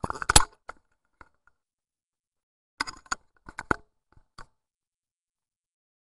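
Plastic Rubik's cube layers clacking as they are turned quickly: a burst of clicks at the start, a pause, then several short bursts of turns from about three to four and a half seconds in.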